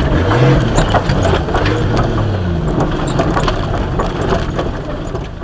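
Nissan GQ Patrol's turbocharged TB42 straight-six petrol engine heard from inside the cab, revving up briefly about half a second in and then easing off, over scattered clicks and knocks from the rough dirt track. The sound grows gradually quieter toward the end.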